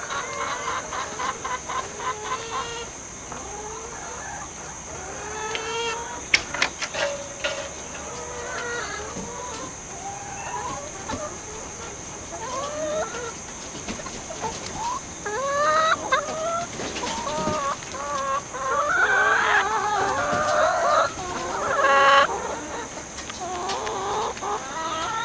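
A flock of hens clucking and squawking as they are let out of the coop, the calls growing busier and louder in the second half and loudest near the end. A few sharp knocks about six seconds in.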